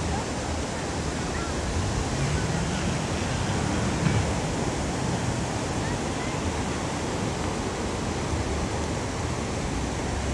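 Surf washing onto a sandy beach: a steady rushing of small breaking waves.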